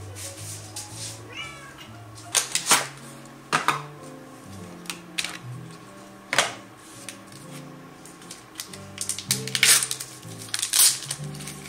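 Background music of held low notes, with a series of sharp clicks and knocks over it: single ones a few seconds apart, then a cluster close together near the end. A brief high call that bends in pitch comes about a second and a half in.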